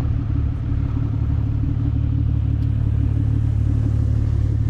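A vehicle engine idling steadily close by, a low, even running sound with a fine regular pulse.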